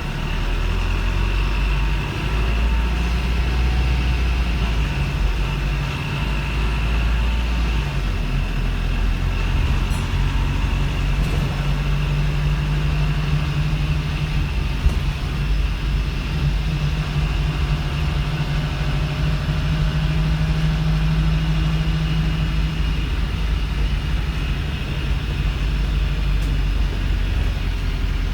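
Wrightbus StreetLite single-deck bus's Daimler OM934 four-cylinder diesel running, heard from on board as a steady low engine drone with a fainter higher whine. A deeper hum grows stronger about twelve seconds in and holds for around ten seconds before easing.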